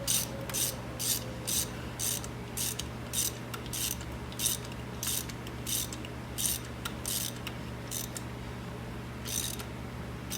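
Hand socket ratchet clicking in short bursts, about two strokes a second, as a spark plug is run down into the cylinder head; the strokes stop near the end once the plug is tight.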